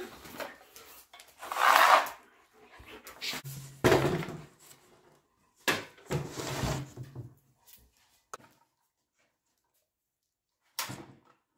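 Scrap wood being handled: a few short scraping, sliding strokes of board against board, the loudest about two seconds in, with a last one near the end.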